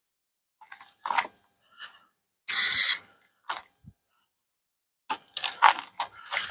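Irregular rustling and scraping of potting compost and potatoes being handled while a container of potatoes is emptied, with the loudest rustle about two and a half seconds in and a cluster of scrapes near the end.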